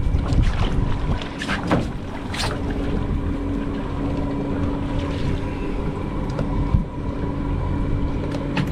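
Boat engine idling steadily, with wind on the microphone and a few sharp knocks, a couple near the start and near the end.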